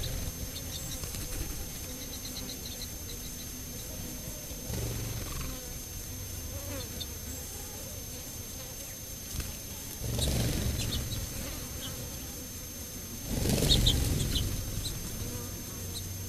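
Flying insects, such as flies or bees, buzzing past the microphone in a low hum. The buzz swells briefly about five seconds in, then makes two louder, closer passes, about ten seconds in and again near the end.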